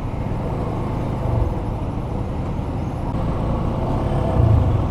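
Yamaha FZS25 motorcycle's single-cylinder engine running at a steady pace while riding, with wind and road noise around it.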